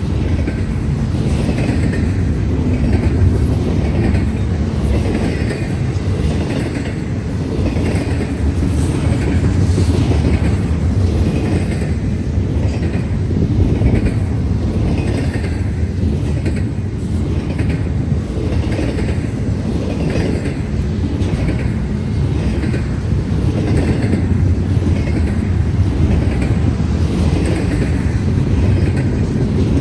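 Intermodal freight train cars rolling past, with a steady heavy rumble and wheels clacking on the rails.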